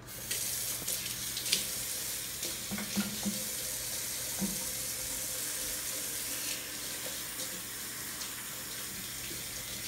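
Kitchen faucet running steadily into a stainless steel sink while two people wash their hands under the stream, the water splashing over their hands.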